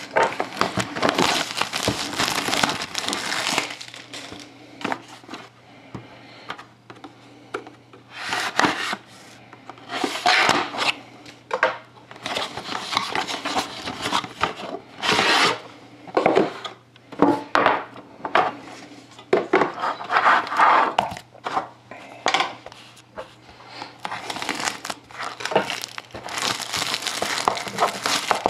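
Plastic wrapping being torn and crinkled in irregular bursts as a sealed box of trading cards is unwrapped and opened.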